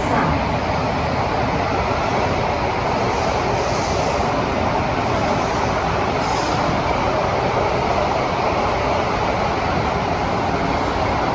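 Steady running noise of a Kawasaki & CRRC Sifang CT251 metro train, heard from inside the passenger car as it travels at speed between stations. Faint high hissing comes and goes briefly a couple of times.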